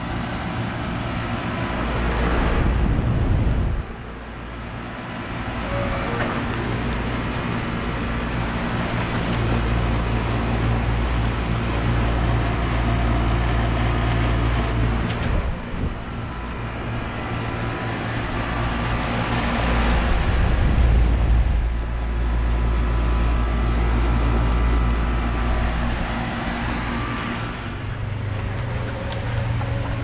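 Central air conditioner outdoor condensing unit running: a steady compressor hum under the whoosh of its fan. Gusts of wind rumble on the microphone a few times.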